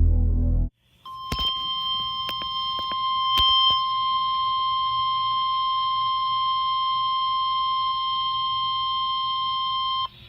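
Emergency weather alert tone: a single steady high-pitched tone, the NOAA Weather Radio 1050 Hz warning alarm, held for about nine seconds to announce a warning broadcast, with a few sharp clicks over it. Music cuts off abruptly just before the tone starts.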